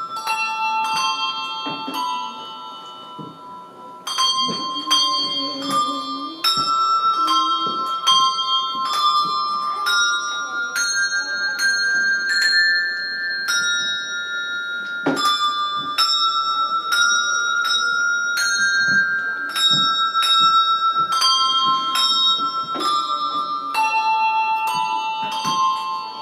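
Handbells playing a tune: single struck notes, about one or two a second, with bright ringing tones that overlap as they fade. There is a short lull about two to four seconds in.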